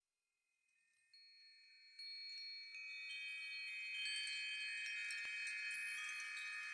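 Music of high, ringing chime-like tones that start from near silence and enter one after another, building into a dense, sustained cluster of bell-like notes.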